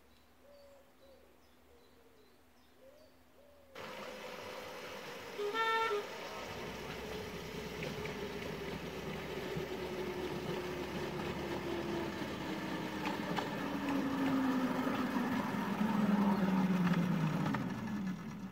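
Miniature railway train running, coming in suddenly after a few quiet seconds, with a steady tone that slowly falls in pitch. About two seconds after it starts there is one short toot from the locomotive, the loudest sound.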